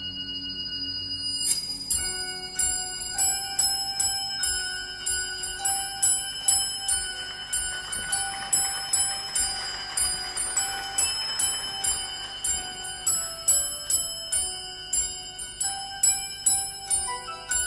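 Music: a slow passage of bell-like tuned percussion, ringing pitched notes struck about twice a second, entering about a second and a half in as a held low tone fades.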